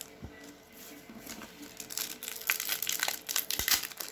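Plastic trading-card pack wrapper crinkling as it is handled and opened, with quiet irregular crackles that grow busier and louder in the second half.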